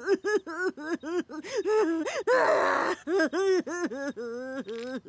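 A cartoon character's voice making a rapid string of short wordless vocal sounds, about four or five a second, with a breathy rush of noise about halfway through.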